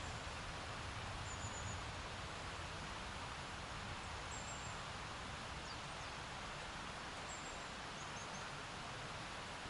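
Steady rushing of a mountain river, with a few short high bird chirps over it every few seconds.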